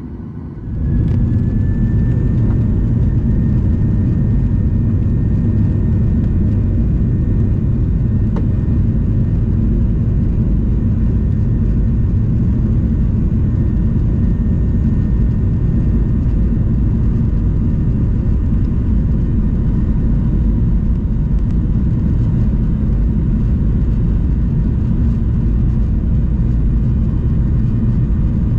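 Boeing 737-800's CFM56 jet engines at takeoff thrust, heard from inside the cabin: a loud, steady rumble with a thin engine whine that starts just under a second in and glides up slightly before settling.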